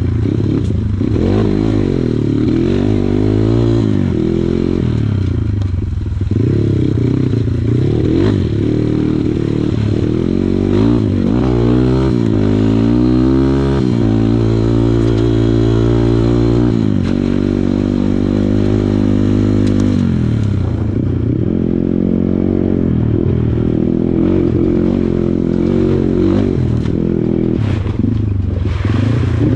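Kawasaki KLX140 trail bike's small single-cylinder four-stroke engine running hard, its pitch rising and falling repeatedly as the throttle is opened and closed through the ride, with a few knocks along the way.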